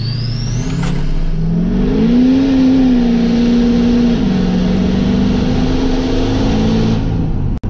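Duramax V8 turbodiesel pickup accelerating on the road, heard from inside the cab: the engine note climbs over the first two seconds, then drops back about four seconds in as the transmission upshifts, and holds steady. A thin high whine rises along with the engine in the first second or so.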